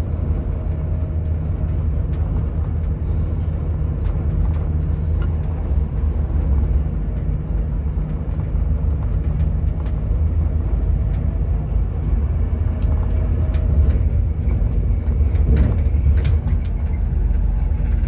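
Intercity passenger train running on the rails, heard from inside the carriage: a steady low rumble with a faint hum above it and a few light knocks about three-quarters of the way through.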